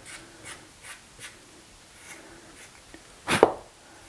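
A hand brushing wood shavings across a wooden workbench and the workpiece: a run of light scratchy strokes, then one louder, short rush of noise about three and a half seconds in.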